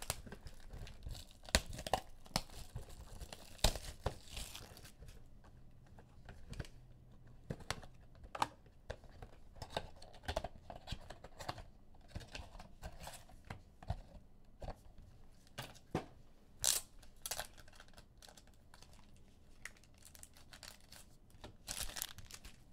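Trading-card packs and blaster boxes being torn open by hand: wrappers ripping and crinkling, with many quick clicks and taps of cards and packaging being handled.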